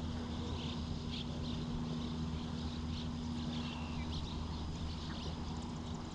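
Small birds chirping here and there over a steady low rumble, with a steady hum that fades about four seconds in.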